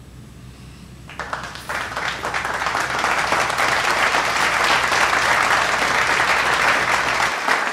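Applause from a crowd of many people clapping, starting about a second in and building to loud, steady clapping.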